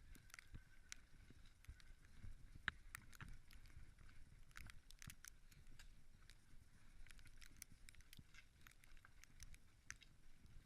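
Faint, irregular clopping and clicking of pack horses' hooves as they walk.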